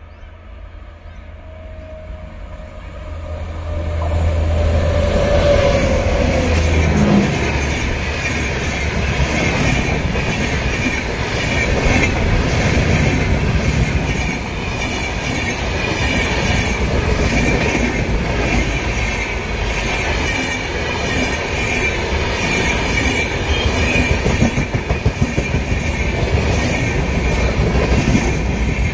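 WAP7 electric locomotive hauling an LHB-coach express passing at high speed. It grows louder over the first few seconds, with a long horn note that drops in pitch as the locomotive goes by. Then the coaches roll past with a steady rush and a rhythmic clatter of wheels over the rail joints.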